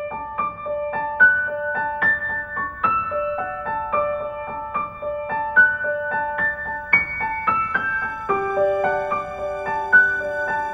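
Gentle background music: a keyboard with a piano-like sound plays a steady melody of short notes, two or three a second. A lower held note joins about eight seconds in.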